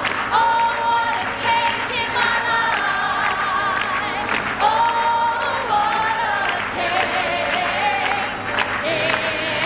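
Live gospel choir music: a woman soloist sings lead into a microphone over a large choir, with long held notes.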